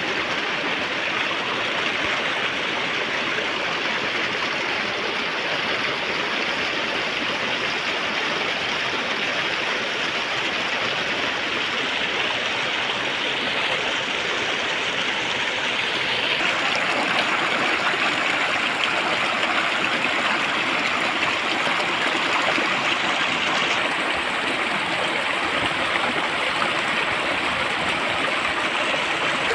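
Shallow stream flowing and splashing over rocks and boulders: a steady rush of water, a little louder about halfway through.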